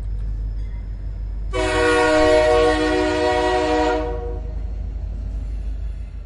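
Train horn sounding one long blast of about two and a half seconds, starting about a second and a half in, over a steady low rumble of a train running on the rails.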